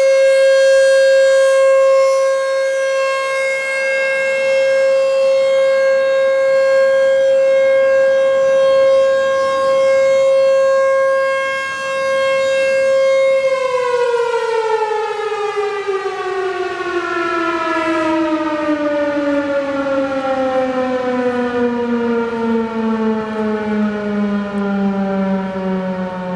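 American Signal T-128 electromechanical warning siren sounding the steady tone of its full alert; about halfway through the pitch starts to fall and keeps sliding down as the siren winds down at the end of the cycle.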